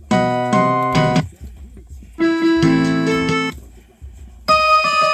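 Electronic keyboard-style Christmas music from a Mr Christmas Lights and Sounds of Christmas player, coming in three short phrases about a second long, each followed by a brief pause.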